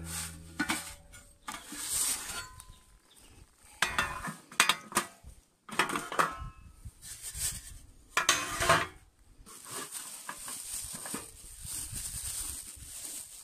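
Objects handled on a stainless steel sheet: a box set down, moved and opened, giving scattered knocks, clinks and scrapes of metal against metal.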